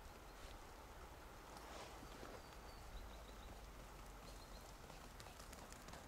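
Near silence: faint outdoor ambience, with a few faint, short, high chirps around the middle.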